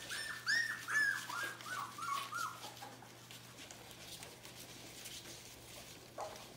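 Three-week-old border collie puppies whining: a quick run of short high squeaks, about four a second, sliding lower in pitch and fading out about two and a half seconds in. One lower whimper comes near the end.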